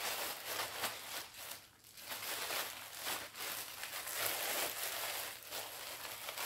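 Crinkling and rustling of embroidery pieces and their wrappings being handled, with a brief lull about two seconds in.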